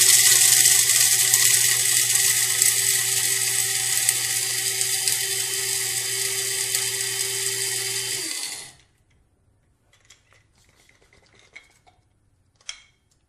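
Krups F203 electric blade grinder, its 200-watt motor and stainless steel blade grinding coffee beans: a loud, steady motor whine with a dense rattle of beans that slowly grows quieter, then stops abruptly about eight seconds in when the button is released. A few faint small knocks follow.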